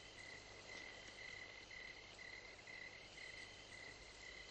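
Crickets chirping faintly and steadily, about two chirps a second.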